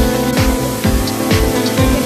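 Background music with a steady beat of about two low drum thumps a second over held notes.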